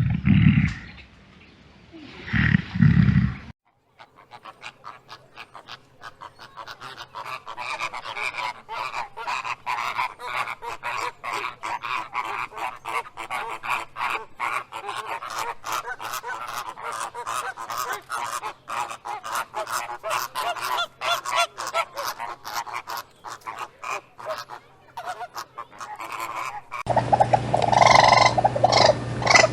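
A flock of birds honking and chattering, many short calls overlapping for over twenty seconds. It opens with two loud, low animal calls in the first three seconds, and near the end a different, louder animal sound with a steady low hum takes over.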